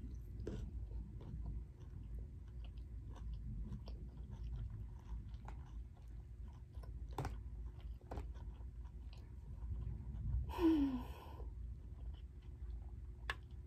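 Close-up mukbang chewing: scattered soft mouth clicks and smacks as food is chewed, over a low steady rumble. About ten seconds in there is a short falling vocal sound, and a sharp click near the end.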